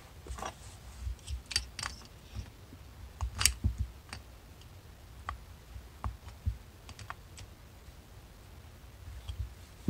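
Mikuni carburetor being handled and fitted by hand on a workbench: scattered light clicks and taps of small metal parts, the loudest about three and a half seconds in.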